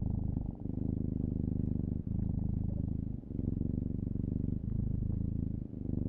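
Steady low purring with a fast, even flutter, broken by short pauses about every second or so, as if between breaths.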